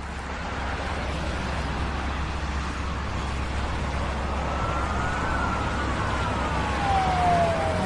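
A hiss of street noise with a low steady hum fades in, and from about halfway a siren wails, its pitch rising and then sliding slowly down.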